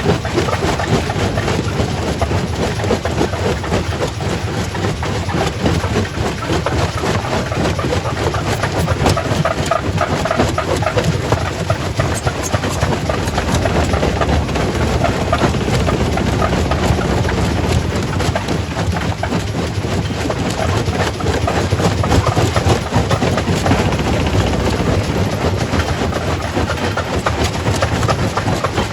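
Quarry primary rock crusher running and breaking stone: a loud steady machine noise with many sharp cracks and knocks of rock.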